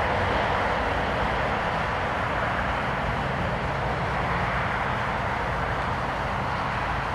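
Steady engine and tyre noise from a Subaru XV crossover driving across grass and a paved track, with a low hum under an even rushing sound and no distinct events.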